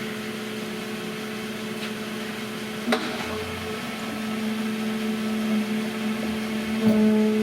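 Berco RTM260A crankshaft grinder running with a steady hum as the operator starts a grinding cycle, with a sharp click about three seconds in and another near the end, where the hum steps up louder.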